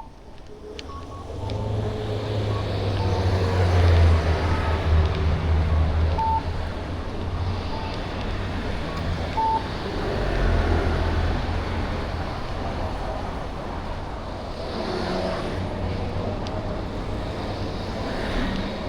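Street traffic: motor vehicles driving past close by, a low engine rumble that swells about four seconds in and again around ten seconds. Two short high beeps sound about six and nine and a half seconds in.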